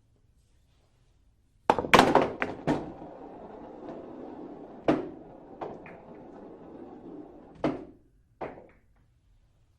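Billiard balls clacking together in a quick burst of about five hits, then rolling across the cloth for several seconds, with a few more single clicks as they strike each other and the cushions.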